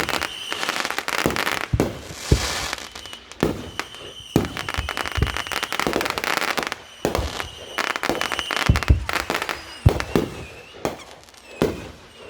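Fireworks going off: a dense series of bangs and pops with crackling in between, a hissing spell a couple of seconds in, and a high whistling tone now and then.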